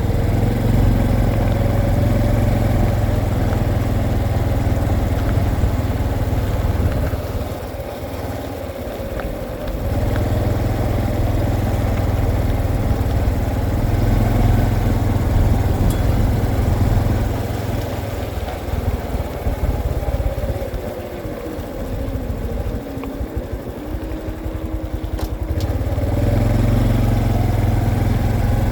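Honda CT125 motorcycle's single-cylinder engine running while riding. It eases off and goes quieter for a few seconds about a quarter of the way in and again for longer past the middle, then picks up near the end.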